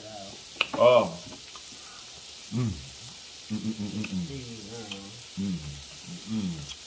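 Meat sizzling on a hotpot's tabletop grill plate, a steady hiss. Over it come several drawn-out vocal hums of enjoyment from people eating, the loudest about a second in, and a sharp click just before it.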